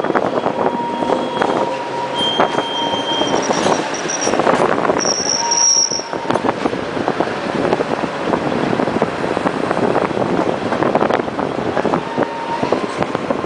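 A tram running on its rails, with a dense clatter and rattle. There is a steady whine throughout, and brief high-pitched wheel squeals about two and five seconds in.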